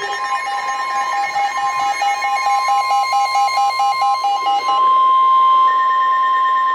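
NOAA Weather Radio 1050 Hz warning alarm tone, held steady, signalling a severe thunderstorm warning. For the first few seconds a fast-pulsing alert beep of about five beeps a second sounds over it. The steady tone then carries on alone, louder, and cuts off near the end.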